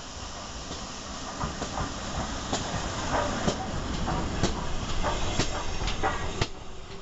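GWR Hall class 4-6-0 steam locomotive Kinlet Hall passing close by under steam. A steady steam hiss grows louder as it draws alongside, with sharp clicks from the wheels and motion about once a second. It is loudest from about three seconds in and eases just before the end as the coaches follow.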